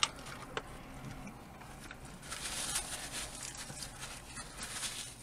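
Quiet eating sounds: chewing fried fast food and handling food and paper wrappers. There is a sharp click at the start, and irregular crackly noise from about two seconds in.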